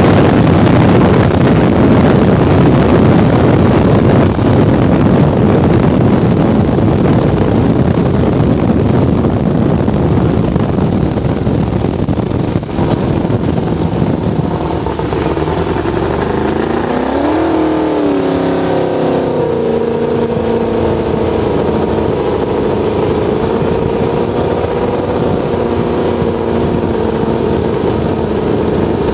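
Picklefork tunnel-hull race boat's engine running hard at speed under a heavy rush of wind and water. Past the halfway point the engine note sweeps briefly up and back down, then settles into a steady, even running note as the boat comes off speed.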